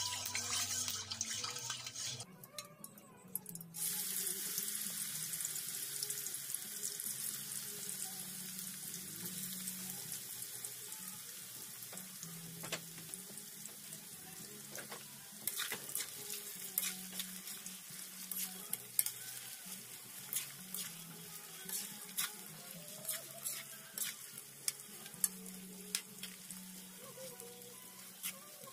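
Banana sticks deep-frying in hot oil in a wok, a steady sizzle that breaks off briefly a couple of seconds in. From about halfway on, a metal spoon clicks and scrapes against the wok as the sticks are stirred.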